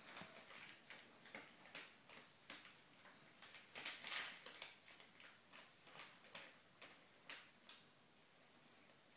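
Crisp packet crinkling and crackling faintly in short, scattered rustles as a cat rummages in it, with a louder rustle about four seconds in and a sharp click a few seconds later.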